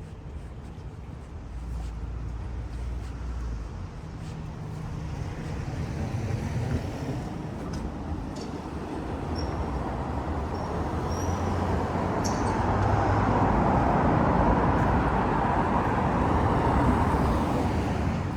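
A motor vehicle passing close by: engine hum and tyre noise build over several seconds, are loudest about two-thirds of the way in, then begin to fade near the end.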